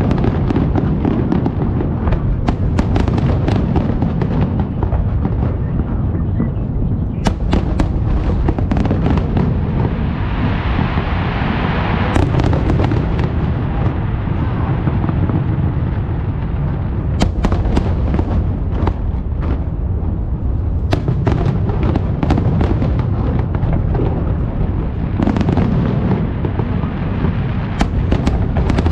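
Aerial fireworks shells bursting in rapid succession: a continuous deep booming rumble with many sharp cracks on top. About ten seconds in, a stretch of crackling hiss comes in for a couple of seconds.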